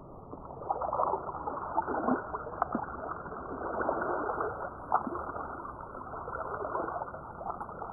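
Muffled underwater sound of a pond: a steady wash of water noise with many small crackles and ticks scattered through it, all dull and without any high sounds.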